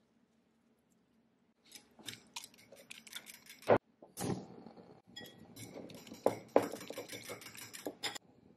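Metal fork whisking eggs in a ceramic bowl: fast, dense clinking strokes against the bowl, starting a couple of seconds in and stopping just before the end, broken briefly by a single sharp knock.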